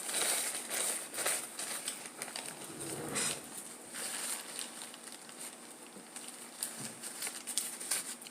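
Close-up eating noises: chewing, mouth and lip smacks and small clicks in irregular bursts, with a few sharp clicks near the end.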